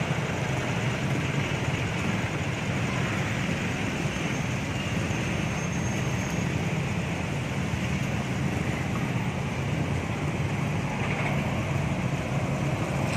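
Street traffic noise of coaches, cars and motorbikes crawling slowly through a congested road, with a steady low drone of diesel bus engines.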